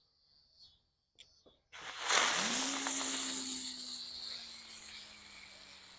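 Megabanger ground bloom flower firework: after a brief fuse fizz, it ignites with a sudden loud spraying hiss about two seconds in. A low hum rises and then slowly sinks as it spins, and the hiss fades away over the last few seconds.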